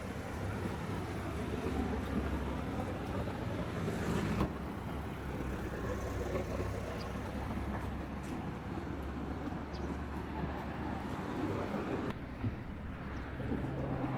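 Steady low rumble of a motor vehicle engine running, over outdoor ambience.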